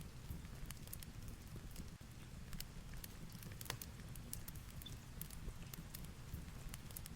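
Fireplace crackling, with irregular sharp pops and snaps, over a low steady rumble of heavy rain.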